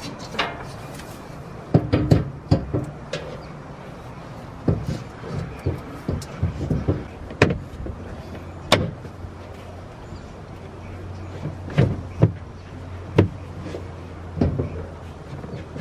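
Irregular knocks and clunks as a metal fuel cell is set into a car's rear floor and handled.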